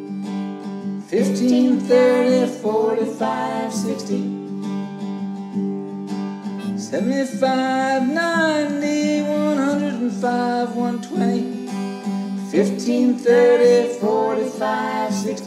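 Music: a strummed acoustic guitar accompaniment with a melody line over it in three phrases, the introduction to a children's song.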